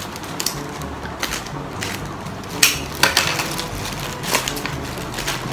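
Parcel packaging crinkling and tearing as a small package is opened, with irregular crackles and clicks and two sharper snaps about two and a half and three seconds in.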